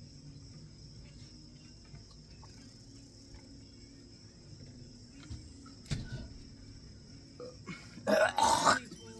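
A person belching loudly near the end, one rough burp in two pushes lasting under a second, over a low steady room hum. A faint knock comes about six seconds in.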